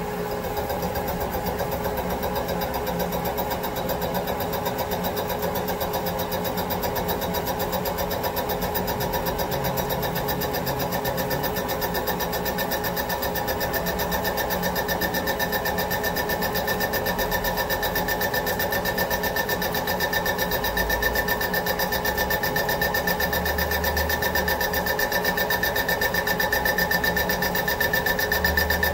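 CNC milling machine spindle turning an 11-inch fly cutter bar at 520 rpm, taking a light rough cut across the face of a cast aluminum plate. It runs steadily, and a high steady tone grows stronger from about halfway as the cutter works into the cut.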